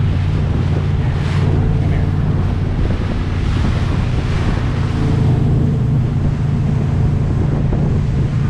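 Motorboat engine running at speed with a steady low drone, under rushing water and wind buffeting the microphone.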